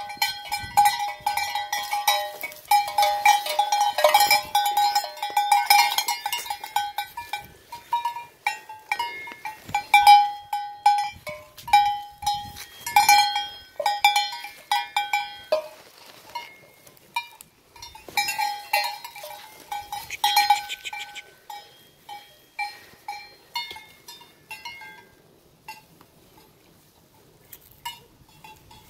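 Sheep bell (cencerro) worn by a ewe clanking irregularly as the sheep moves about, a rapid jangle that grows sparser after about 20 seconds and stops about 25 seconds in.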